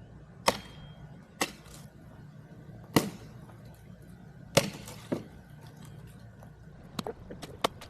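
Axe chopping tree limbs: five sharp, irregularly spaced strikes into the wood, then a quicker run of lighter cracks near the end as the small branches break off.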